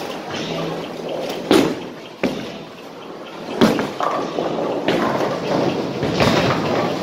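Bowling alley din: bowling balls rumbling along the lanes, with a string of sharp knocks and crashes from balls and pins, the loudest about a second and a half in and again about three and a half seconds in.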